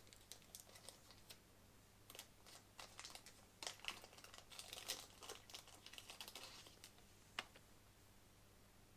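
Faint handling of a car alarm remote and its plastic packaging while it is opened: a scatter of small plastic clicks and crinkles, with one sharper click near the end.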